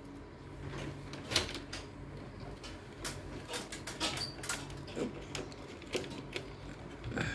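Irregular light clicks and plastic rattles of hands working inside a split air conditioner's indoor unit, freeing the evaporator temperature sensor's wire, over a faint steady low hum.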